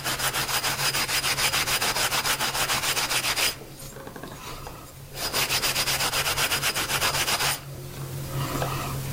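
A red 360-grit Mirka Mirlon abrasive pad scrubbed in quick back-and-forth strokes over a machined aluminum plate, giving it its final finish. The rubbing stops for under two seconds a few seconds in, starts again, and goes softer near the end.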